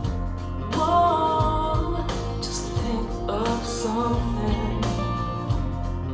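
Music: a song with a singing voice over a steady bass line and drum beats.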